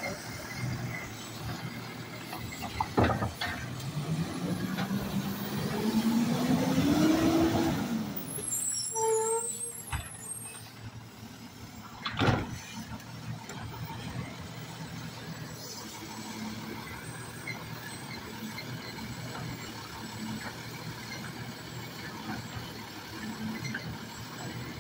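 Automated side-loader garbage truck emptying roll carts: a bang from the cart about three seconds in, then the diesel engine revving up steadily for several seconds to drive the hydraulic lift arm before dropping back. A second bang comes about twelve seconds in as a cart is handled, and the engine runs at a steady idle after that.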